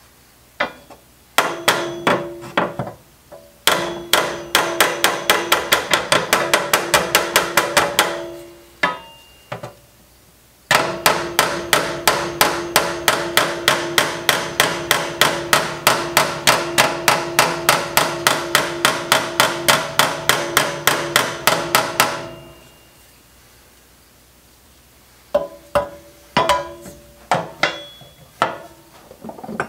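Hammer driving a metal tool against the stamped steel seat pan of an old stool, in quick blows about four or five a second. There are two long runs with pauses between, and a few single blows around them. Each blow sets the metal seat ringing with a steady tone.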